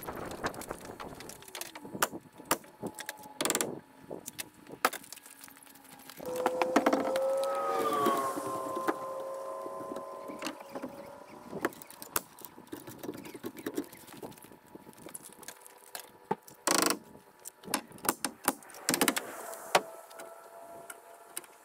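Framing work on a wooden house frame: scattered knocks and clatter of lumber and ladders, with two sharp bangs. A pitched machine hum comes in loudly about six seconds in, dips slightly in pitch, then settles into a steady, fainter drone.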